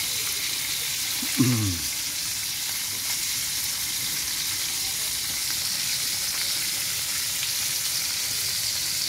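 Whole fish frying in hot oil in a metal wok over a wood fire: a steady, even sizzle as the fish nears browning. About a second and a half in there is a brief low falling sound.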